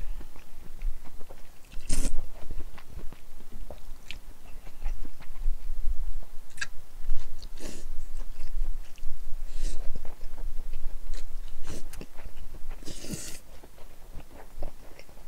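Cold naengmyeon noodles being slurped and chewed close to a microphone, with meat chewed in between; several sharp, hissing slurps come at irregular intervals.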